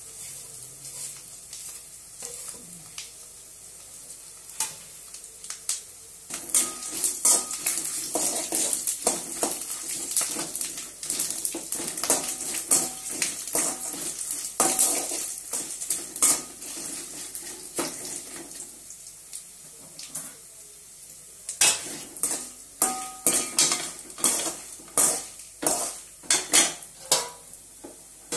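A steel spoon scrapes and clinks against an aluminium kadai while stirring whole spices as they roast, with the spices rattling in the pan. It is faint for the first few seconds. Busy scraping starts about six seconds in, and sharper separate clinks of spoon on pan come near the end.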